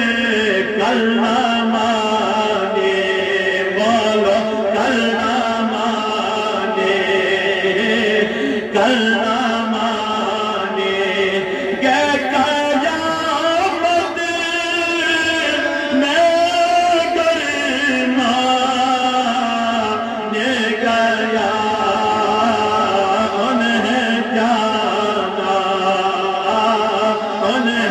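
Devotional chanting: a voice sings a slow, melodic recitation in long, gliding held lines without pause.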